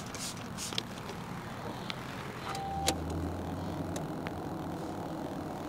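A few short hisses of a spray bottle squirting waterless wash onto a car's side mirror. About halfway through comes a short beep with a click and a brief low hum.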